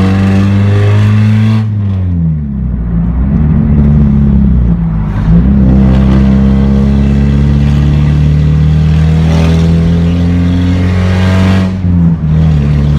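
Mazda Miata four-cylinder engine running through a 2.5-inch straight-pipe exhaust with no muffler, very loud inside the cabin while driving. The revs fall about two seconds in, climb again, dip briefly around five seconds and again near the end, and hold a steady drone in between.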